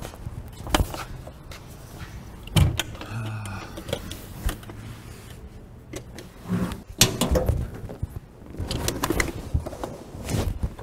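Irregular knocks and clunks, a few of them sharp, from handling the steel tailgate and cargo bed of a 1971 GMC Jimmy.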